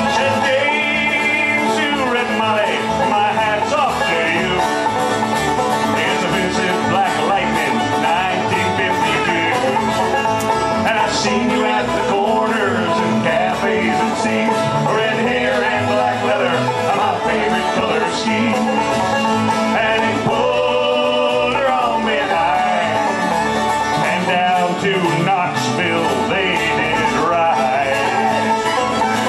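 Live acoustic band playing bluegrass: strummed and picked acoustic guitars over a bass, steady and loud.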